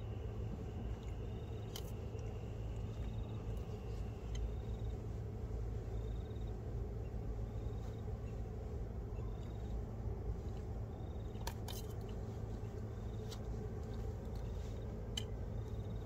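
Someone eating rice with a spoon: scattered clicks of the spoon against the container, with a pair close together about halfway through. Under them are a steady low rumble and a faint high chirp repeating about every second and a half.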